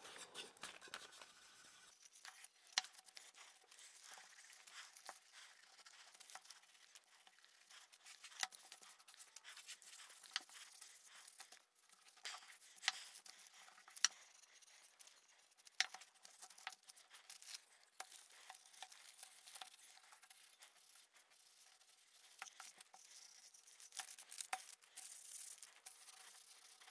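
Faint rubbing of a cloth pad wiping oil finish onto a wooden knife and cake lifter, with scattered light clicks and crinkles as the pieces are handled on newspaper.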